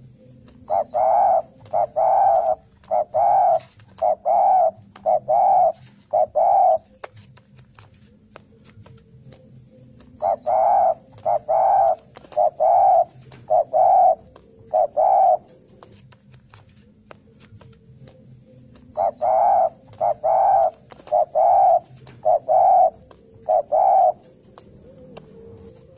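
Spotted dove cooing in three runs of about seven or eight coos each, several seconds apart: the 'narung' challenge call of a male looking for a rival.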